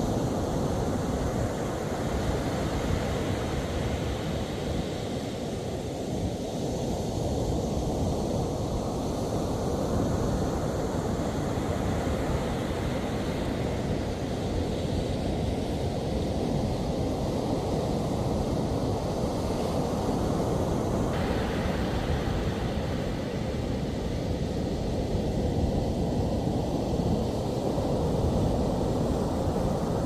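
Steady wind buffeting the microphone over the wash of ocean surf, the surf swelling and fading slowly every several seconds.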